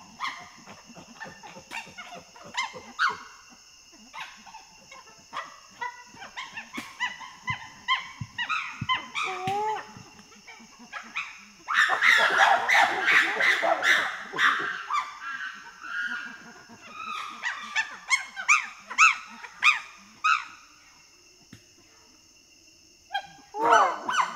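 Wild chimpanzees calling: short calls and barks, then a loud outburst of overlapping screams about twelve seconds in that lasts a few seconds. More barks follow, then a brief lull before loud calls start again near the end. A steady high background hum runs underneath, dropping out during the screaming.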